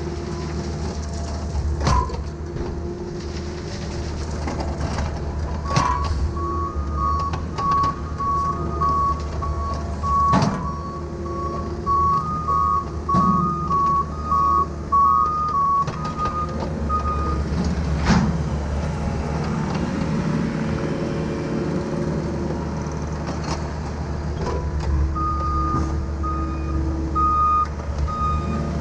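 CAT mini excavator's diesel engine running steadily under load, with a few sharp knocks as the bucket strikes dirt and stone. A truck's backup alarm beeps in a steady high repeating tone through the middle of the stretch and again near the end.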